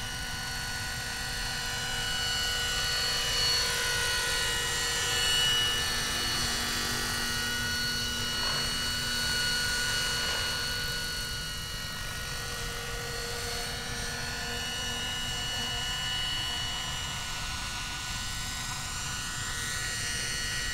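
Minicopter Heli-Baby electric RC model helicopter with a Plettenberg motor in flight: a steady motor-and-gear whine of several high tones over the noise of the rotors. The pitch bends briefly about halfway through and again near the end as it passes and comes around.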